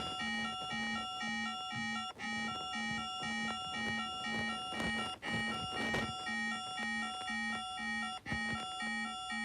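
Maldives emergency alert (EAS) alarm tone: an electronic, buzzy low pulse about twice a second under a repeating pattern of alternating high beeps, dipping briefly now and then.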